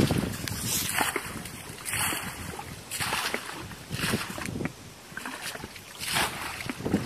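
Muddy pond water being scooped up with a plastic bucket and thrown out, a splash roughly every second, as a small pond is bailed dry to get at the fish.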